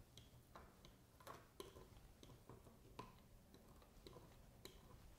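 Near silence with faint, irregular small ticks and clicks as a plastic scale roller on a wire handle is rolled and pressed over wet epoxy sculpt on a fish skin.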